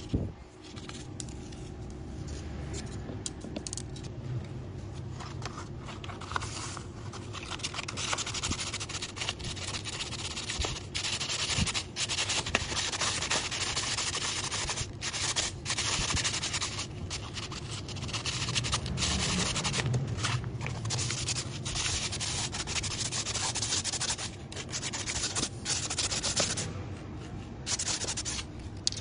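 Sandpaper rubbed back and forth along a thin bamboo rod: a steady scraping with brief pauses between passes, fainter for the first few seconds.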